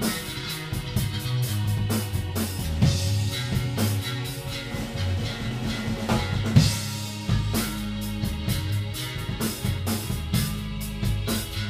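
Rock band playing live: a Ludwig drum kit keeps up a busy beat of fast hits over a guitar and low sustained bass notes that change pitch.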